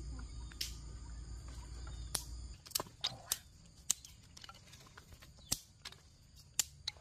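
A steady high insect drone under a low rumble that stops about two and a half seconds in; after that, a series of sharp, irregular clicks and taps from a knife being worked by hand close by.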